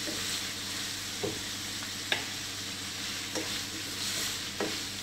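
Shredded chicken sizzling in oil in a stainless steel frying pan over high heat, turned with a spatula that knocks against the pan about four times.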